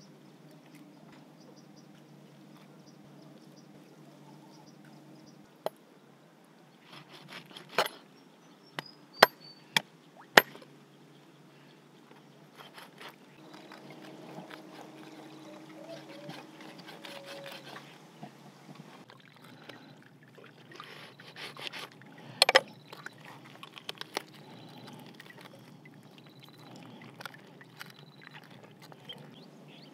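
Water trickling and splashing as a plucked duck is handled and cut at the water's edge, with a few sharp knocks of a knife blade striking the stone it is cut on, several close together near the start and one more loudly past the middle.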